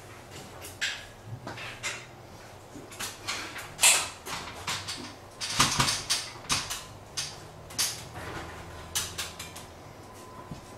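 Scattered clicks, knocks and rustles of objects being handled and moved, with a sharp knock about four seconds in and a busy cluster of clatter about two seconds later, over a faint steady hum.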